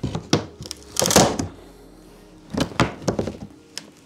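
Nailed wooden shipping crate being pried open with a hammer: a longer scrape about a second in, then a run of sharp knocks and clunks of wood and metal.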